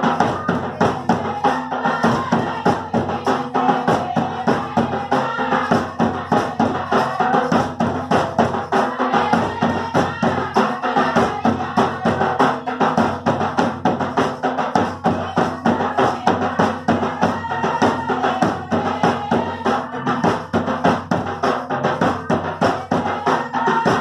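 Folk dance music: two-headed barrel hand drums beat a quick, steady rhythm, with a melody line over them.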